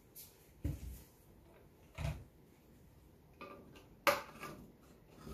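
Handling sounds of a paint tin and cups on a padded table: a few soft thumps, then a sharp knock about four seconds in as a small screwdriver is set to the tin's lid to open it.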